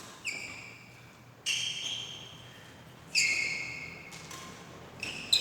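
Sharp strikes about every one and a half seconds, four in all, each followed by a high ringing tone that fades over about a second.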